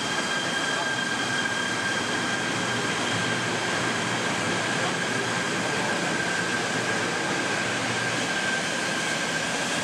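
KTM Komuter electric commuter train running at the station platform: a steady rushing noise with a thin high whine that rises slightly in pitch near the end.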